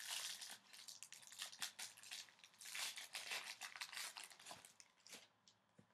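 A foil hockey card pack wrapper being slit open and pulled apart: crinkling and tearing foil in crackly bursts, loudest at the start and again about three seconds in.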